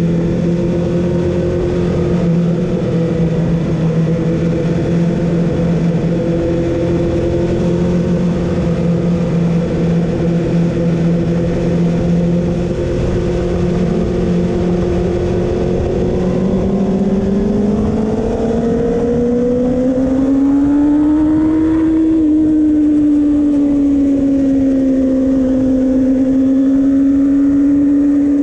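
A vehicle engine running at a steady, even pitch, then rising smoothly over a few seconds about two-thirds of the way through and holding at the higher pitch.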